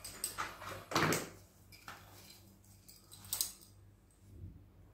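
A few short rustles and light clicks of hands handling fishing line, a small metal snap and a pair of pliers. The loudest comes about a second in, another just past three seconds.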